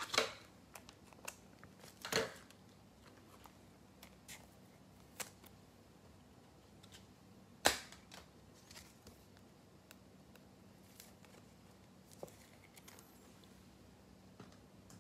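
Scattered sharp clicks and taps of trading cards and a clear plastic card holder being handled on a tabletop, the loudest a single snap about eight seconds in.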